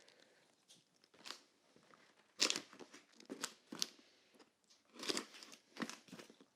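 Small cardboard box being opened by hand: a series of irregular cardboard crunches and tearing sounds, the loudest about two and a half seconds in.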